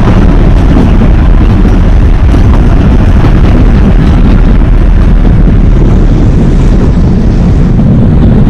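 Narrow-gauge train led by a ZDM 3 diesel locomotive running: a loud, steady rumble that does not let up.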